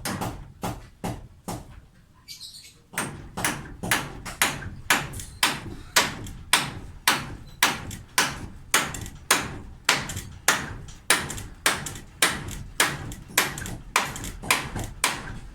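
Hammer blows striking at a steady pace of about two a second, with a short pause about two seconds in.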